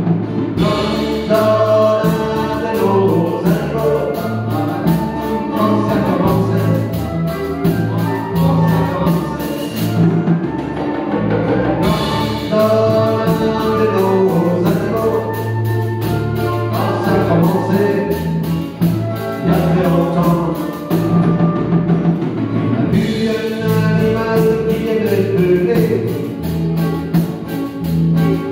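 Live acoustic band playing: a flute carries the melody over strummed acoustic guitars and a steady bass line.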